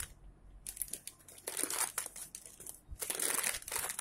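Plastic packaging wrap crinkling and rustling as non-stick pans are handled in their cardboard box. It comes in two stretches, from about a second in and again near the end.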